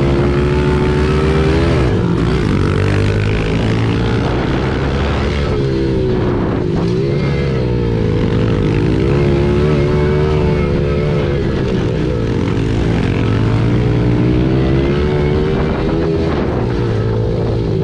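Yamaha TT-R110 pit bike's small single-cylinder four-stroke engine running hard under throttle, its pitch rising and falling over and over as the rider accelerates, backs off and shifts, heard from on the bike with wind rushing over the microphone.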